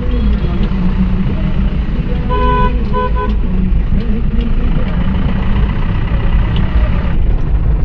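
Vehicle engine and road rumble heard from inside the cabin, with a vehicle horn tooting about two seconds in: one longer toot followed by two short ones.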